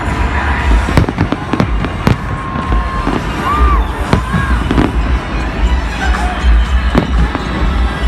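Aerial fireworks bursting in quick succession: a run of sharp bangs and crackles over a heavy, continuous low boom.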